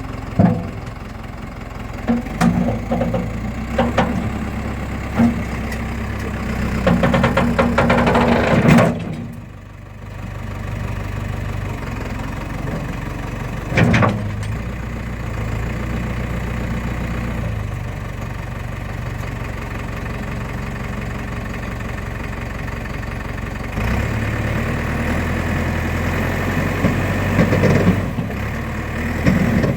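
Case 480 backhoe's engine running while the machine is worked, with sharp metal clanks and knocks over it. The engine gets louder and busier for a few seconds, drops off suddenly near the ten-second mark, and picks up again with more clanks near the end.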